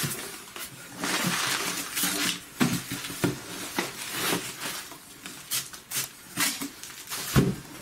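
Packing material being handled inside a cardboard box: a styrofoam insert lifted out, bubble wrap crinkling as a box cutter slices it open, and crumpled paper padding rustling, with irregular scrapes and sharp knocks.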